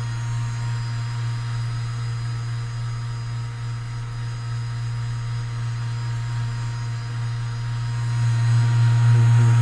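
Handheld electric muscle massager running with a steady, loud hum while pressed on the patient's muscles, getting louder about eight seconds in.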